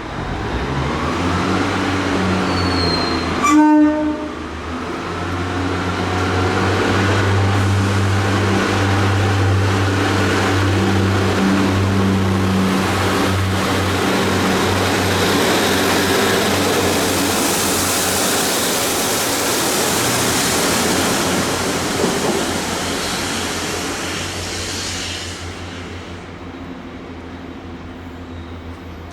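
Class 143 Pacer diesel multiple unit sounding one short horn blast a few seconds in, then its diesel engine droning steadily under power as it runs past, with wheel and rail noise building and then fading away over the last few seconds.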